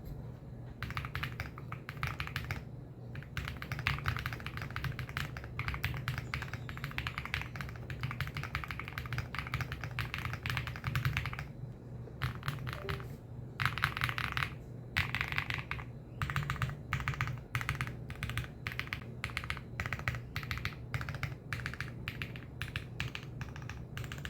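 Typing on an MMD KM40 keyboard: fast runs of keystrokes broken by short pauses, about three seconds in and around the middle.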